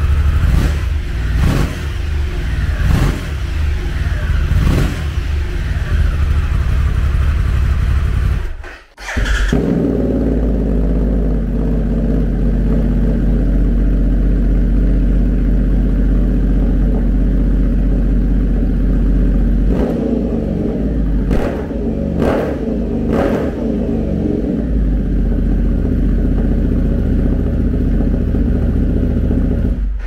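Harley-Davidson Pan America's 1250 V-twin with a Toce straight-through slip-on exhaust (muffler box removed), running loud at idle and blipped repeatedly, with a brief drop about nine seconds in before it settles back to a steady idle and is blipped four more times.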